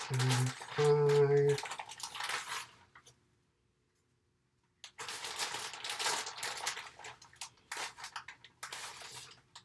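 Crinkling of a plastic bag of brown sugar being handled while sugar is scooped from it into a plastic mixing bowl, an irregular rustle through the second half.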